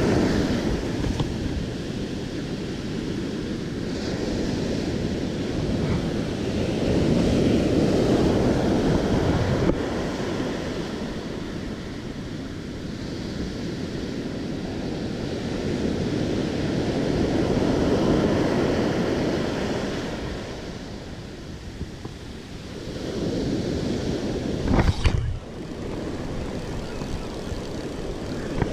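Ocean surf breaking and washing up the beach close by, swelling and fading every several seconds, with wind rumbling on the microphone. A single sharp knock comes about 25 seconds in.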